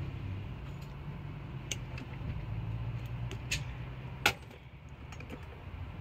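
Stereo wires and their crimp connectors clicking and rattling as they are handled and fitted, with a sharp click about four seconds in, over a steady low hum.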